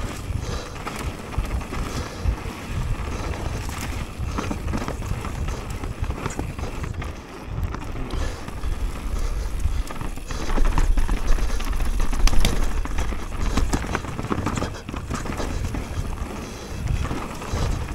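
Mountain bike riding fast down a rough dirt forest trail, heard from an action camera on the bike: wind rumble on the microphone with a constant clatter of knocks and rattles from the bike and tyres over the ground. It gets louder for a couple of seconds about ten seconds in.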